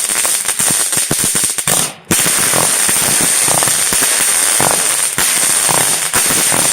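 Consumer fireworks going off: a rapid run of sharp pops, a brief drop about two seconds in, then dense continuous crackling with a high hiss.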